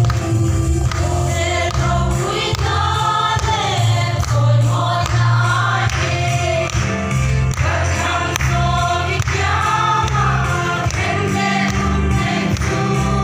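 Women's choir singing a Mizo gospel song together over amplified instrumental backing with a steady bass line.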